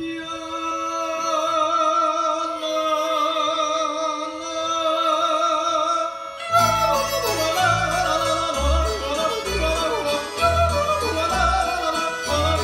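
Appenzell yodeling with string band. A yodeled note is held with a wavering vibrato over a sustained chord. About six and a half seconds in, the band comes in with double bass notes underneath and the yodel moving quickly between notes.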